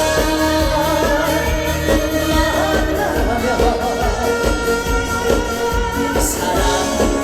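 A male trot singer singing live over backing music with a steady beat, holding long sung notes.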